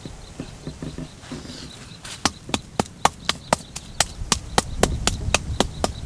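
Quick, regular chopping strikes of a hand blade, about four a second and some fifteen in all, starting about two seconds in, after a few soft knocks.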